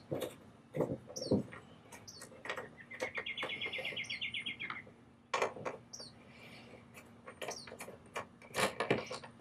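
Scattered sharp clicks and knocks of hand tools and metal bracket hardware being handled while car hood-damper brackets are refitted. A bird trills for about two seconds near the middle, with short chirps around it.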